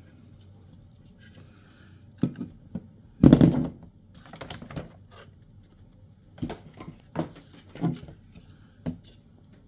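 Unboxed car train horns and their parts being handled: a series of light knocks, clicks and rattles, the loudest about three seconds in.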